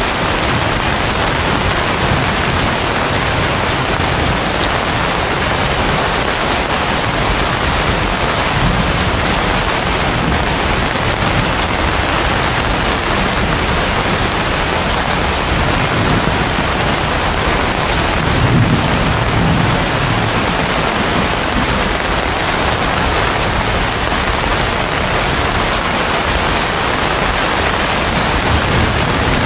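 Heavy rain pouring steadily onto broad banana leaves and palm fronds. A low rumble swells briefly about two-thirds of the way through.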